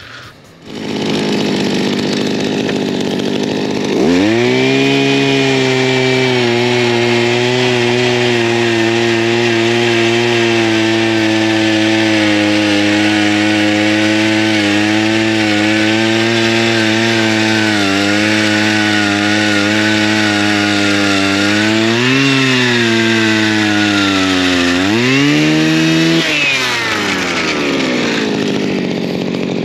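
Gas-powered ice auger boring through lake ice. The engine revs up about four seconds in and holds a steady high note under load. It surges twice near the end, then drops back to a lower idle as the throttle is released.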